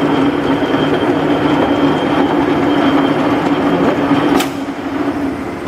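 LeBlond engine lathe running under its 10 hp motor, the spindle and chuck turning with a steady geared hum. About four and a half seconds in, a sharp click and the running hum dies down as the clutch is thrown out and the spindle stops.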